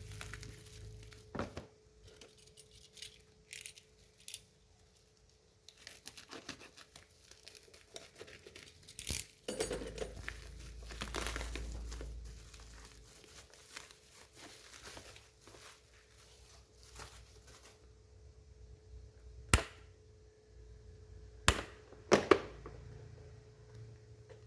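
Packaging being torn open and handled: tearing and crinkling with scattered clicks, then three sharp knocks near the end.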